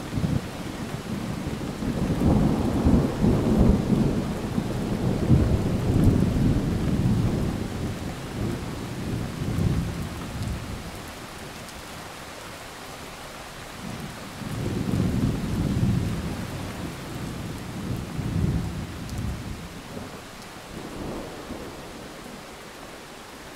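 Distant thunder rumbling over a steady hiss of rain. A long low roll swells about two seconds in and dies away by about ten seconds, and a second, shorter one rolls from about fourteen to nineteen seconds.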